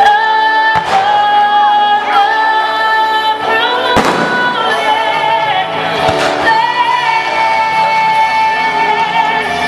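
Music with long held notes plays throughout, while aerial fireworks shells burst with sharp bangs: one about a second in, the loudest about four seconds in, and another about six seconds in.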